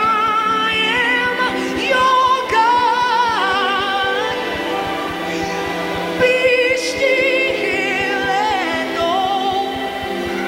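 A woman singing gospel solo into a microphone in long, held phrases with heavy vibrato and sliding pitch, over steady held chords.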